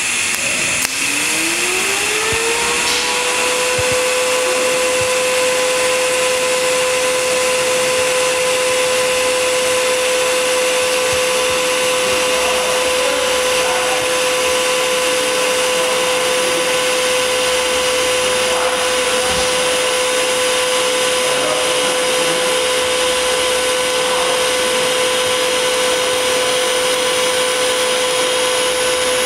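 DC TIG welding arc from an HTP Inverarc 200 TLP burning steadily on mild steel, with pulse off. A whine rises in pitch over the first couple of seconds as the arc comes up, then holds as one steady tone over a constant hiss.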